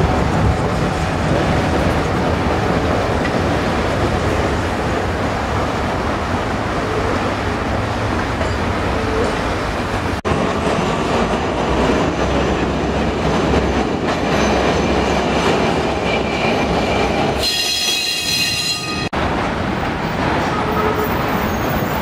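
Heritage electric streetcars running on street track: a steady rumble and clatter of steel wheels on the rails. Late on, a high-pitched wheel squeal rings out for about a second and a half.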